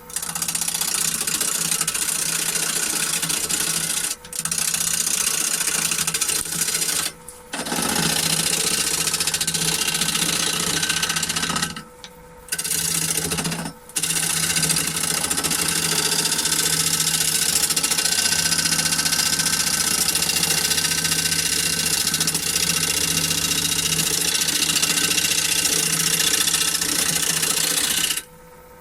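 A gouge cutting a spinning wood blank on a Holzmann D460FXL wood lathe: loud, scratchy shaving noise in long passes, broken by four short pauses and stopping near the end, with the lathe's steady hum beneath.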